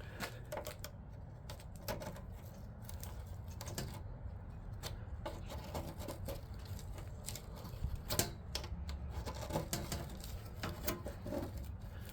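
A screwdriver prying and scraping at a rust-seized sleeve in a window air conditioner's rubber compressor mount: irregular metal clicks and taps, the sharpest about eight seconds in.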